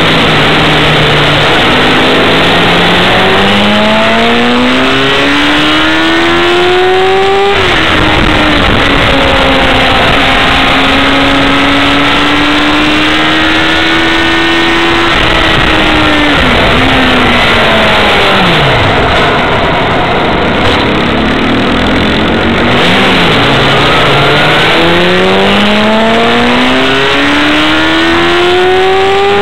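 Stock Yamaha FZ6 N's 600 cc inline-four engine, heard from on board at speed on a race track. The revs climb steadily, drop sharply at a gear change about seven seconds in, and hold through a long pull. About halfway through they fall away steeply as the bike slows, then climb hard again near the end.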